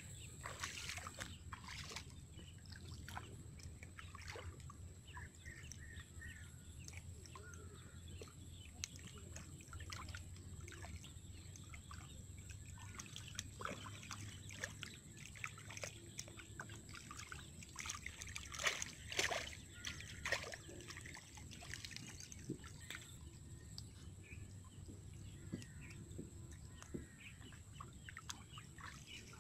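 Hands sloshing and squelching through shallow muddy water while groping for fish, in small irregular splashes that are loudest about two-thirds of the way through.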